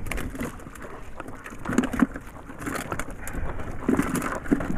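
Woven bamboo fish trap knocking and rattling against a bucket as the catch is worked out of it by hand, a run of short knocks with the loudest about two seconds and four seconds in.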